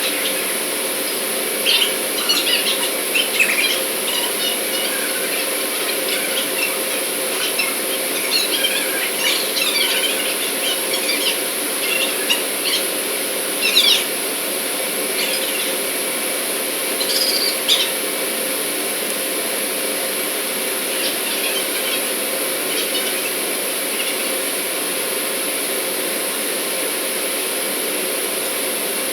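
A steady machinery hum with a faint held tone. Over it come scattered short, high chirps and squeaks, thick in the first half and dying out after about eighteen seconds.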